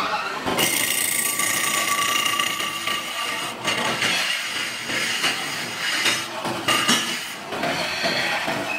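Belt-driven metal lathe turning an aluminium disc, the cutting tool peeling metal off the spinning face. A steady high-pitched ringing from the cut runs for the first few seconds, over continual clicking and knocking from the machine.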